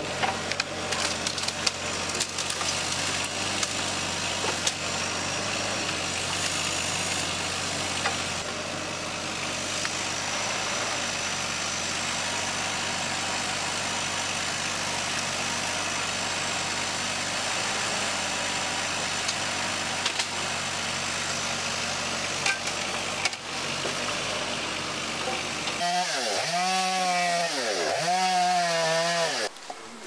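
Mini digger engine running steadily, with a few knocks as it handles the fallen trunks. About four seconds before the end this gives way to a chainsaw revving up and down several times as it cuts a log.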